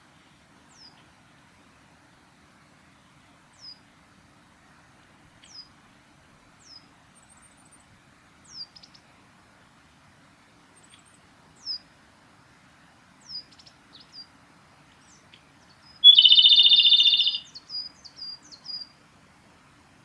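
Male Japanese robin singing one loud rattling trill about three-quarters of the way through, followed by a few short high notes. Before it come faint, thin high notes that slide downward, one every second or two.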